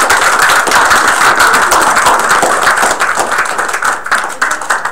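Audience applauding: dense clapping that thins out near the end.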